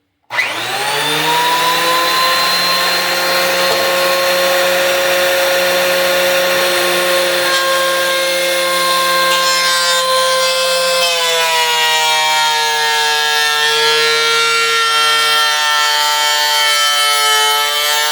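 DeWalt benchtop thickness planer switched on, its motor spinning up with a quickly rising whine, then running steady. About eleven seconds in the pitch drops slightly and wavers as the cutterhead comes under load, planing an old stair tread.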